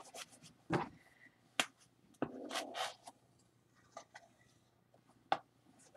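Faint scattered clicks and a brief scratchy stroke of a dry-erase marker drawing a graph on a handheld whiteboard, with the marker and board being handled.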